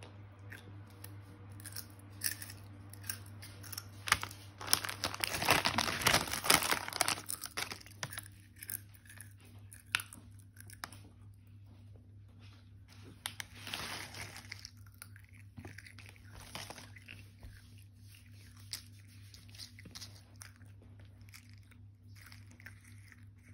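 A toddler crunching and chewing hand-cooked potato crisps in small bites, with a longer, louder stretch of crunching about five seconds in and a shorter one around fourteen seconds.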